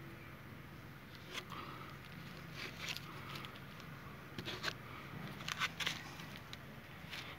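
Plastic spreader scraping and smoothing body filler onto a car's steel body panel, in short irregular strokes about once a second, over a steady low hum.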